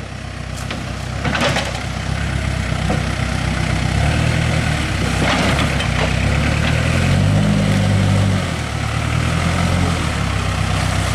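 Backhoe loader's diesel engine running steadily and revving up and easing off a couple of times, with a couple of faint knocks.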